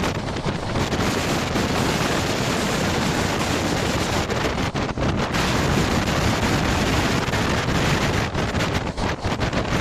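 Wind buffeting the microphone over the steady running rumble of a passenger train at speed.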